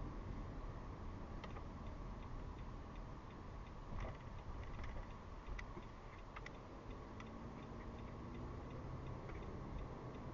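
Car turn-signal indicator ticking at an even rhythm, heard inside the cabin over a steady low road and engine rumble, with a few louder clicks among the ticks.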